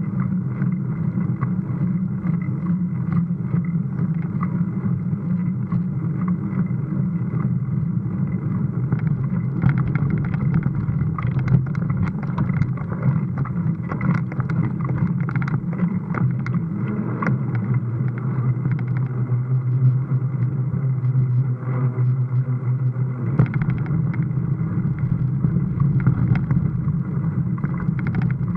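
Mountain bike climbing, heard through an action camera's mic: a steady low rumble with frequent rattles and knocks from the bike over rough ground, densest in the middle stretch where it rides up a ribbed concrete ramp.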